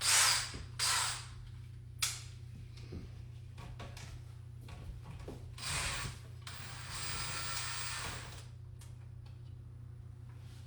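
Handling noises from work on a wall fixture: two short scrapes, a click, then about two seconds of steady scraping or whirring, over a steady low hum.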